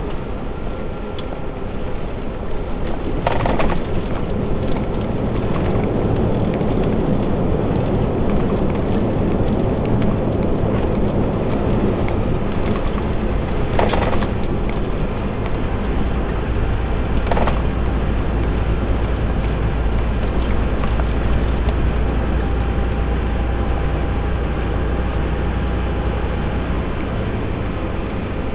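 Steady road noise inside a truck cab while driving on a wet highway in rain: a low engine drone and tyre hiss. A few brief knocks stand out, one a few seconds in and two more about halfway through.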